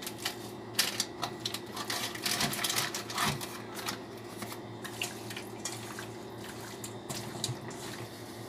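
Plastic packet crinkling and rustling in the hands as it is handled over a bowl of raw chicken: quick crackles, heaviest from about one to four seconds in, then a few more near the end. A steady low hum runs underneath.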